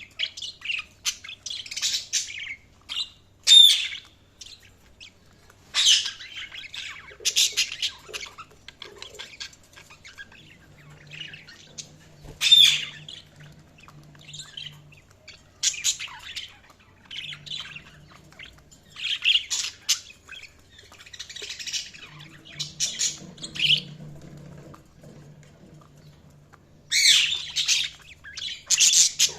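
Budgies chirping and squawking in short, sharp bursts that come in clusters of several calls, with brief gaps between them.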